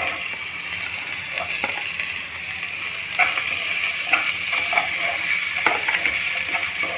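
Chopped onions sizzling in hot oil in a pot, stirred with a wooden spatula that scrapes against the pan now and then.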